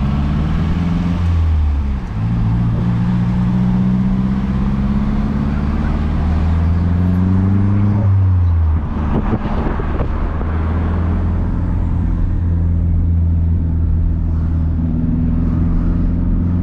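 Car engine pulling through the gears, its pitch climbing slowly and then dropping at an upshift about two seconds in and again about eight seconds in, then running at a steady cruise, with road and wind noise around it.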